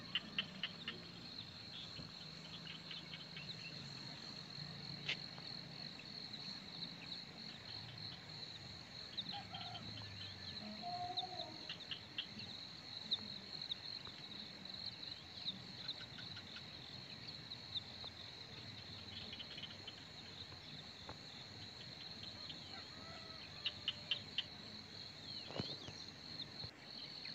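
Faint, steady chorus of crickets: a continuous high trill, with scattered short chirps and a few faint calls over it.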